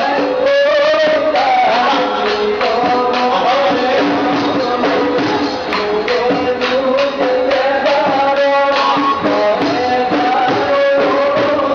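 Live group singing with instrumental accompaniment, amplified through a stage sound system: a held, gliding vocal melody over a steady percussion beat.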